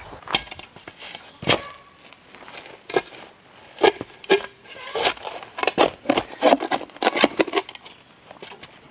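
Steel shovel blade scraping and striking into stony, gravelly soil while a large stone is pried out: an uneven string of sharp scrapes and clinks, thickest from about five to seven and a half seconds in.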